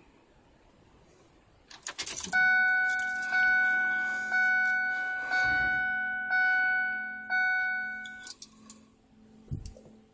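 Keys jangling, then a vehicle's warning chime dinging six times, about once a second, each ding fading away. A faint steady low hum runs under the dings, and a dull thump comes near the end.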